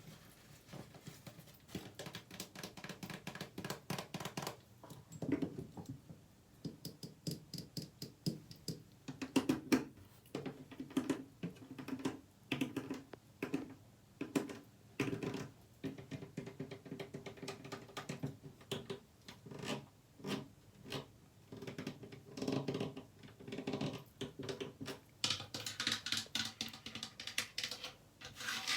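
Fast ASMR tapping and scratching by hand on objects: quick irregular runs of taps, some leaving a short ringing tone, mixed with scratchy rubbing that grows stronger near the end.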